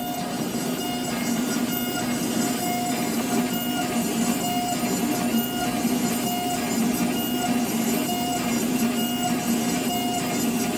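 Sirona CEREC MC XL dental milling unit cutting a crown block under a coolant water spray, running with a steady whine and a higher tone that comes and goes.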